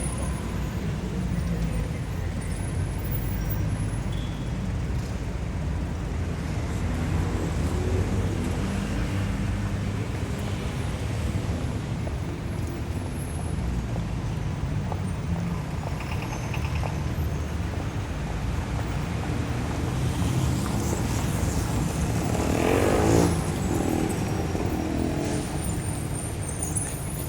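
City traffic ambience: a steady low rumble of passing cars and engines. One louder vehicle pass swells up about three-quarters of the way through.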